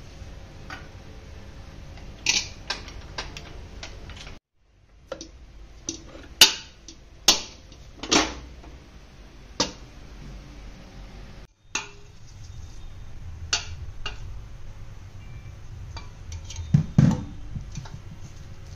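Commercial planetary stand mixer kneading dough with its dough hook, a steady low hum with scattered clicks. Later come several sharp metallic knocks and clanks as the stainless steel bowl and dough hook are handled.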